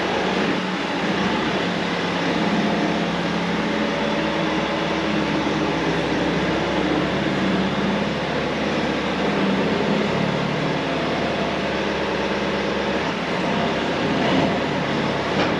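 Tractor engine running steadily at working revs, a continuous drone with a low hum.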